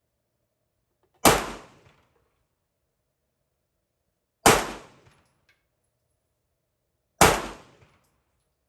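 Three pistol shots, about three seconds apart, each with a short echo trailing off.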